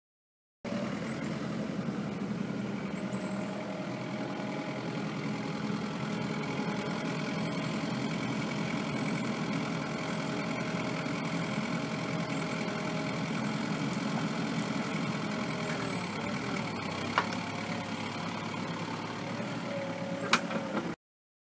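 Compact excavator's diesel engine running steadily, with two sharp clicks near the end.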